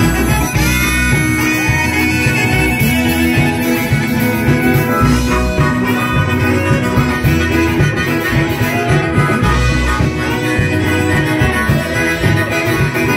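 A live band playing, with a harmonica lead over keyboard and a steady, heavy bass line.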